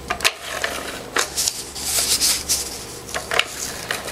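Cardstock being handled and stuck down: paper rustling with a scatter of light taps and clicks, and a denser rustle about two seconds in.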